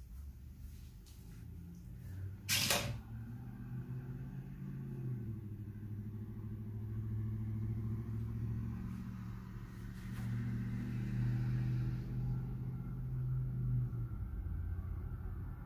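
Diesel locomotive engines of an approaching CSX freight train, a steady low drone that grows louder. A short, sharp burst of noise about two and a half seconds in.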